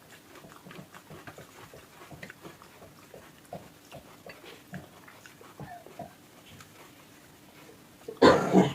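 Close-miked chewing and wet mouth smacks of someone eating rice and curry, many small clicks a second, with a short loud burst near the end.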